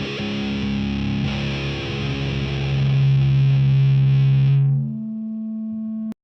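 Heavily distorted electric guitar through a miked amp, playing a slow doom riff that ends on a long held low note. About four and a half seconds in the distortion drops away, leaving a single steady tone that cuts off abruptly near the end.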